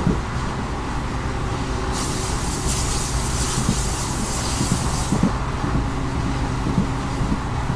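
Passenger train running behind an EMD WDP4D diesel-electric locomotive: a steady rumble with the locomotive's engine drone underneath and occasional knocks. A hiss rises over it about two seconds in and stops after about three seconds.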